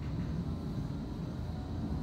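Steady low rumble inside a Bombardier Flexity 2 tram's passenger saloon as it runs along the track, with a faint high steady whine above it.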